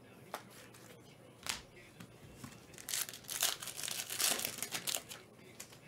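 Foil trading-card pack wrapper crinkling and tearing as it is opened. A couple of light taps come first, then about two seconds of dense crackling starting around three seconds in.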